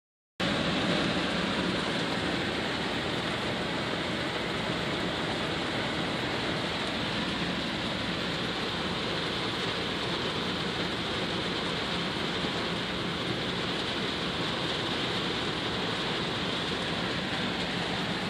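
Heavy rain pelting a vehicle's roof and windshield, heard from inside the cabin as a steady, dense hiss that starts about half a second in.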